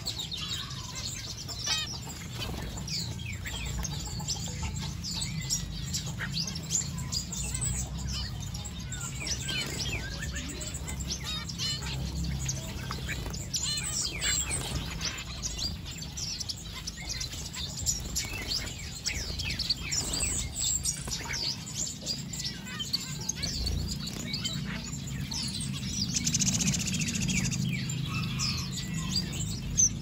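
A flock of small aviary finches, zebra finches among them, chirping and calling constantly, with many short calls overlapping.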